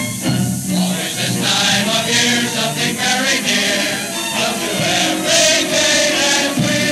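A chorus of voices singing together on a hissy early sound-film recording.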